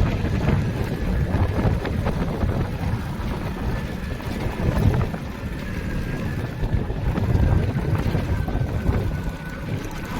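Wind buffeting the microphone on a moving motorcycle, over the low rumble of the engine and road. A faint, steady, high whine sits above it.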